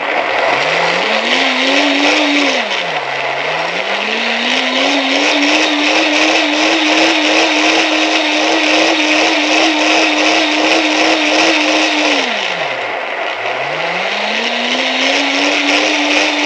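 High-powered countertop blender liquidising sliced pandan leaves and water. It is loud: the motor whines up to speed, dips and spins back up about three seconds in, and runs steady for several seconds. It winds down about thirteen seconds in, then speeds up again before slowing near the end.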